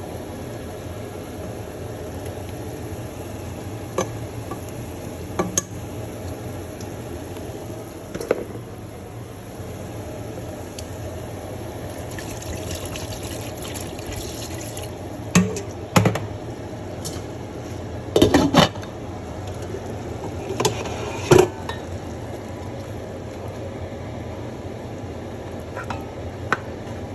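Cooking sounds from a pot of soup being made: a spoon or utensil knocking and clinking against the pot now and then, with stirring and a steady hum beneath. The knocks come in small clusters, most of them in the middle of the stretch.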